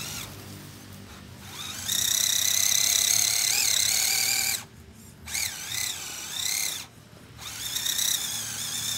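Electric motor and gearbox of an RC scale crawler truck whining under throttle as it climbs a steep slope. The pitch wavers up and down with the throttle, and the whine cuts out twice briefly when the throttle is released.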